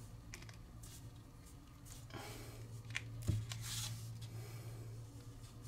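Faint rustling and crinkling of folded kami origami paper as fingers squeeze and bend a point of it, with a few small clicks of the paper.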